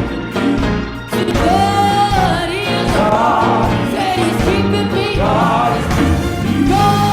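Worship music: a singer holding long, wavering notes over band accompaniment, a gospel-style song.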